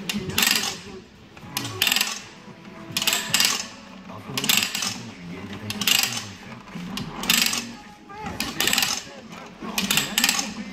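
Steel drum of a spring cable reel being spun hand over hand, its ratchet clicking in a short rattling burst with each stroke, about eight bursts one every second and a half or so, as the drum is turned against the spring to set its pre-tension.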